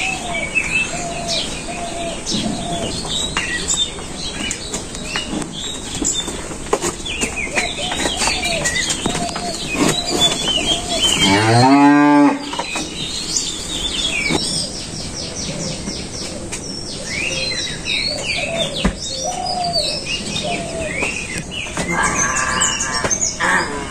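A cow lowing: one long moo about halfway through, rising and then falling in pitch. Small birds chirp throughout.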